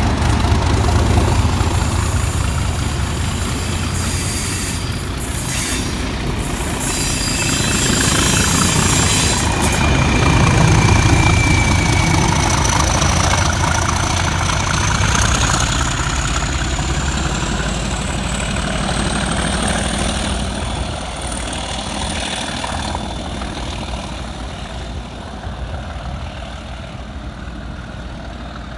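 Class 37 diesel locomotives' English Electric V12 engines and the train's wheels on the rails as a test train passes at speed with a locomotive at each end. A high whistle rises in pitch midway, and the heavy engine rumble fades steadily as the rear locomotive draws away.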